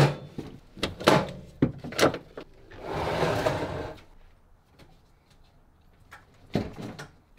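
Clunks and knocks of an aluminium checker-plate battery box being handled in the back of a ute, with a scraping slide lasting about a second, about three seconds in, and another clunk near the end.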